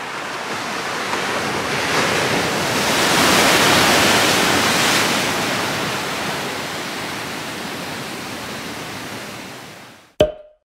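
Sea waves breaking and washing over the rocks of the shore, a rushing surf that swells to its loudest a few seconds in and then ebbs. Near the end it drops away and cuts off with a click.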